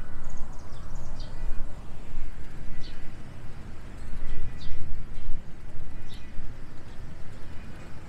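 Wind buffeting the microphone of a moving bike-mounted camera: a loud, uneven low rumble. A bird gives short high chirps in the trees, a few near the start and then one about every second and a half.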